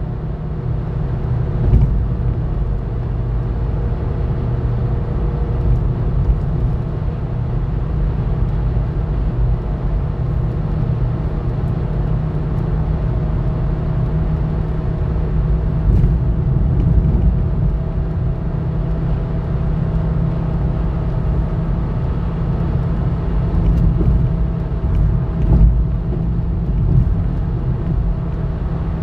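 Car interior road noise at highway speed, around 75 to 80 mph: a steady low rumble of tyres and engine with a faint hum, broken by a few light thumps.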